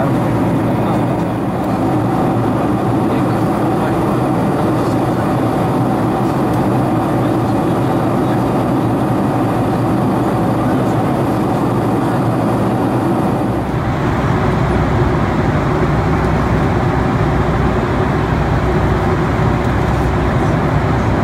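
Steady cabin noise of a Boeing 747-400 in flight: the constant rumble of its General Electric turbofans and the airflow past the fuselage, heard from a window seat near the wing. About fourteen seconds in it turns deeper and slightly louder.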